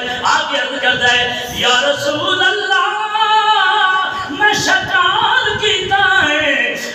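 A man's voice chanting verse in a melodic, drawn-out singing style, unaccompanied, with some notes held for a second or more.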